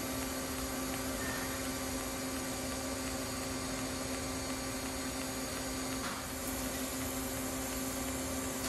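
Pulsed TIG arc fusing a stainless steel exhaust tube to a V-band flange without filler rod: a steady hiss with a steady hum underneath, dipping slightly about six seconds in.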